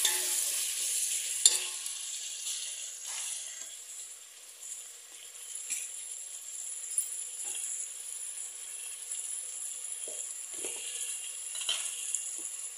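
Tomatoes, onions and green chillies sizzling in oil and ghee in a stainless steel pot, frying until the tomatoes go soft. It is stirred with a spatula at first, with one knock about a second and a half in, then settles to a steady sizzle.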